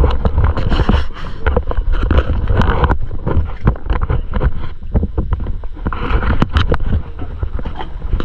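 Wind rumbling on the microphone and water against the hulls of two small boats lying side by side at sea, with many short knocks and clicks scattered throughout.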